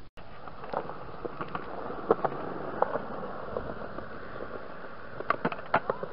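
Skateboard wheels rolling on concrete: a steady rolling noise with scattered clicks and taps, a cluster of sharper clicks near the end.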